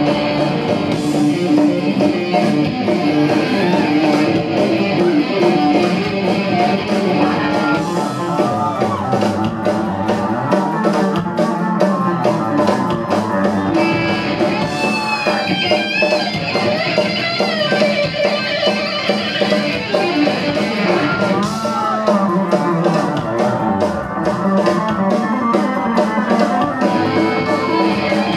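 Live rock music led by an amplified electric bass playing fast runs of notes, with sliding pitch bends at times.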